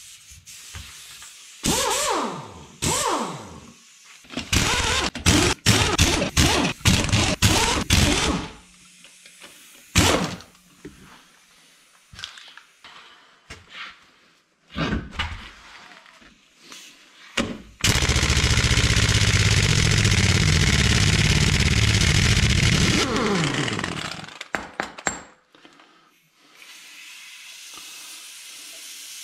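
Clunks, knocks and scrapes from hands-on work on a Ram 2500's front wheel, whose wheel bearing is worn out and lets the wheel rock loose. Past the middle comes about five seconds of steady mechanical running noise.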